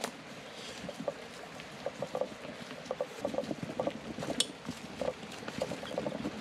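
Footsteps on a dirt trail with irregular clicks and knocks from a loaded mountain bike being pushed, over a faint rush of river water.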